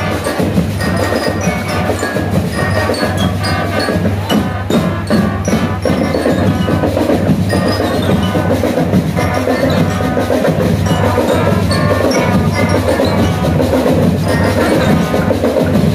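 School marching band playing: trumpets and saxophones over a steady marching drum beat, with the ringing notes of a bell lyre.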